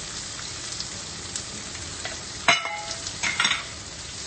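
Sliced onions frying in ghee in a nonstick pan, a steady sizzle as a spatula stirs them. About two and a half seconds in comes a sharp clink with a short ring, and a second clatter about a second later.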